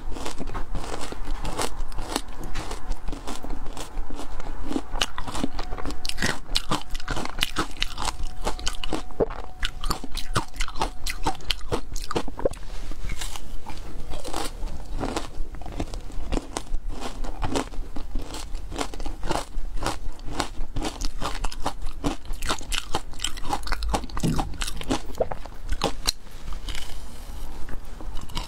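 A person biting into and chewing a block of frozen matcha ice, a dense, continuous run of hard crunches and cracks.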